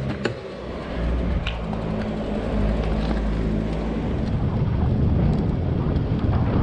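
Wind rumbling on a bike-mounted action camera's microphone as the tandem bicycle rolls along, louder and fuller after about four seconds. A low steady hum runs underneath for the first few seconds.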